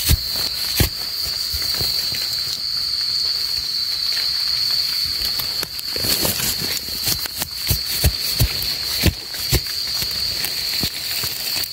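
Crickets keep up a steady high trill, with sharp scrapes and knocks from a metal blade digging into damp soil. The knocks come a couple of times at the start and in a cluster past the middle.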